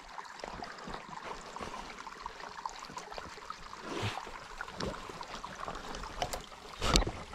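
Stream water trickling through a beaver-flooded crossing, with scattered knocks and clicks from footsteps and trekking poles on logs, and one louder knock near the end.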